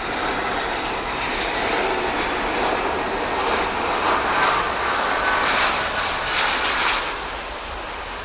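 Airbus A320-family airliner's jet engines on final approach, passing close by just before touchdown. The jet noise swells to its loudest about four to seven seconds in, with a faint whine at the peak, then begins to fade.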